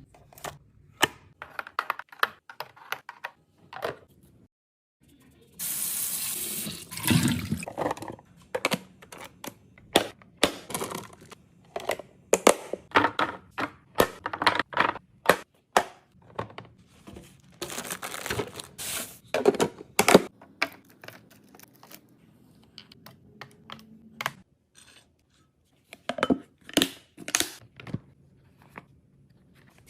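Kitchen handling noises: food containers and packaging knocked, set down and handled in quick irregular clicks and clatters, with two longer hissing stretches, one about six seconds in and one near the middle.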